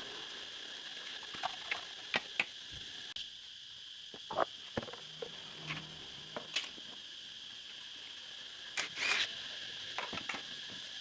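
Scattered light clicks and taps of hand tools and small metal parts being handled during motorbike engine work, a dozen or so irregular strokes with a slightly louder cluster late on, over a steady high hiss.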